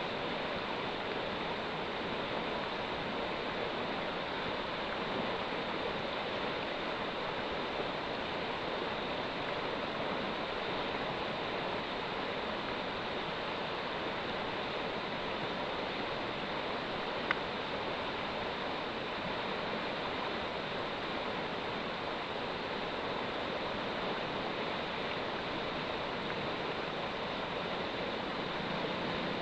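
River rapids rushing steadily, an even wash of white water, with one brief click partway through.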